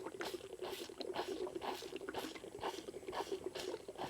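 Bull calf sucking on a feeding bottle, with rhythmic slurping pulls about two a second.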